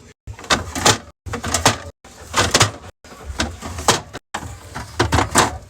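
Groceries and food containers knocking and clattering as they are put away, with sharp knocks and sliding scrapes. The sound comes in short clips cut together about once a second, each ending in an abrupt gap.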